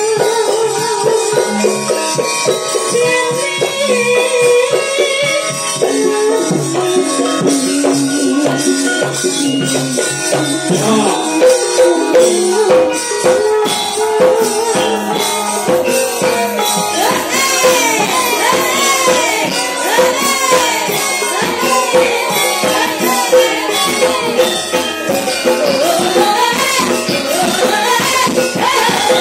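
Javanese gamelan music, amplified, with women singing in the sinden style over it and a dense run of percussion strokes. The singing, wavering and ornamented, comes to the fore about eleven seconds in.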